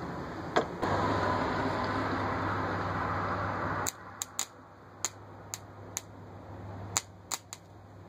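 Microwave-oven-transformer metal melter under heavy load: the rewound transformer hums and the contact buzzes and sizzles as the electrode presses on red-hot metal, cutting off abruptly about four seconds in. Then the electrode touching a screw makes a string of sharp, irregular spark snaps, about nine of them.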